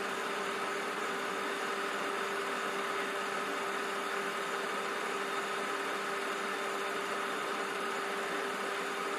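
Steady machine-like hum with an even hiss, unchanging throughout, with no calls from the perched hawk.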